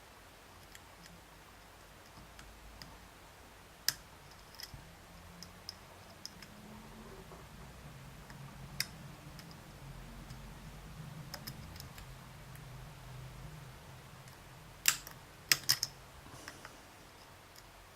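Dimple pick working the pins inside an Abus D20 dimple lock under tension: faint metallic ticking with sharp clicks, one about four seconds in, another near nine seconds, and a quick cluster of several about fifteen seconds in.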